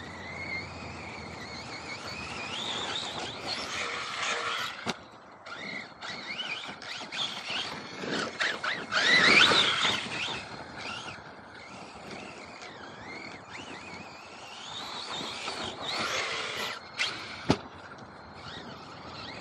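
MT8 RC monster truck's electric motor whining, rising and falling in pitch as the throttle is worked, loudest about nine seconds in. A couple of sharp knocks come from the truck landing or hitting.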